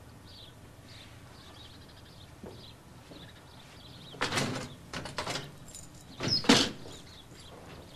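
Wooden desk drawer slid open and pushed shut, three loud scraping knocks about four, five and six and a half seconds in, the last the loudest. Faint birdsong twitters steadily behind it.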